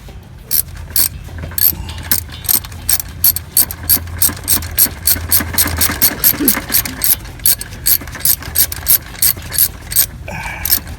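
Ratchet wrench clicking rapidly and evenly, about three clicks a second, as it turns a spark plug socket at the back of the engine. There is a short pause near the end.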